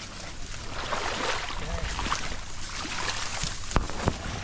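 Shallow water sloshing and splashing around a person wading among cattails while gathering up a cast net, with reeds rustling and two sharp knocks near the end, over a low steady rumble.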